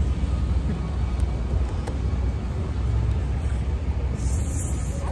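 Steady low rumble of outdoor street noise with road traffic, and a brief hiss about four seconds in.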